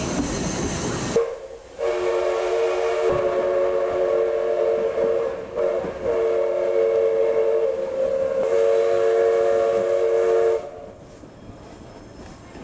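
Steam locomotive's chime whistle blowing a chord of several notes at once. It sounds about a second in and blows in long blasts with two brief breaks for about nine seconds, then stops, leaving the quieter running noise of the train.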